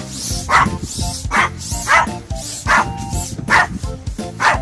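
A small dog barking repeatedly, about one bark every second, over background music.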